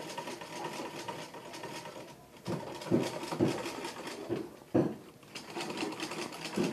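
Manual, foot-treadle Singer sewing machine running with no motor, driven by the treadle. A steady whir for the first two seconds gives way to a run of clunks roughly every half second.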